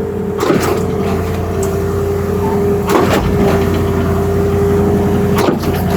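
Concrete pump truck running at a steady engine speed, with a sharp clunk about every two and a half seconds as the pump's pistons change stroke.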